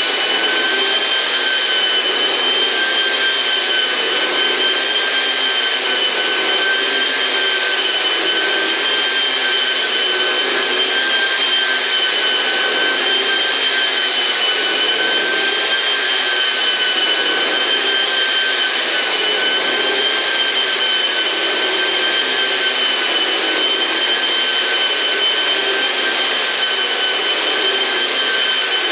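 Yelmo floor polisher-vacuum's motor running steadily: a high whine that wavers slightly in pitch over a rushing hiss of air.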